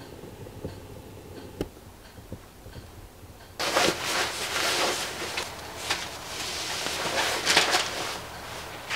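Quiet for the first few seconds, with a faint tap or two. Then, about three and a half seconds in, loud irregular rustling of a padded jacket's fabric begins as it is put on and adjusted at the neck and head.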